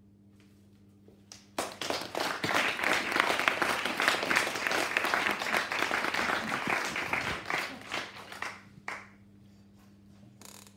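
Small audience applauding: the clapping starts about a second and a half in, holds for about six seconds, then thins out to a few last claps.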